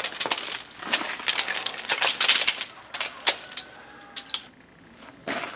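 Coatings of ice being knocked off and falling in pieces, a run of sharp, irregular tinkling clinks that thins out near the end. The ice comes off easily because it is melting.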